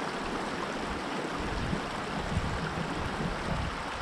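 Small creek water running steadily, an even hiss of moving water.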